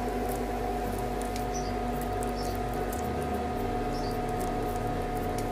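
Soft, faint squelching and clicking of wet besan-and-jackfruit cutlet batter being pressed and spread by hand, over a steady background hum with a constant tone.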